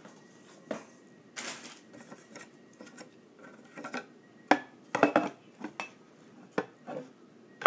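Hookah being handled and set into a slatted stand, its hard parts clinking and knocking irregularly, with a short scrape about a second and a half in.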